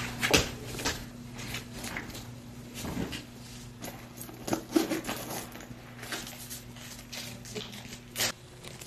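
Handling noises: scattered light clicks and rustles, a few of them sharper, over a steady low hum.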